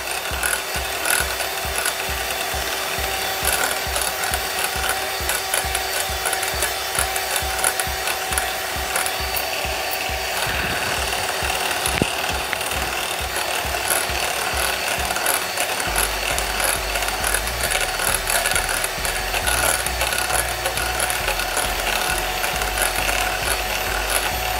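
Electric hand mixer running steadily, its twin beaters whipping cream in a glass bowl. A lower hum joins about two-thirds of the way through.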